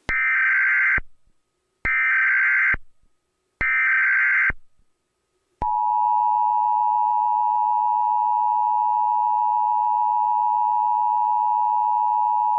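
Emergency Alert System SAME header: three one-second bursts of digital data tones, then a long steady attention tone near 1 kHz that starts about halfway through. Together they mark the start of a new emergency alert.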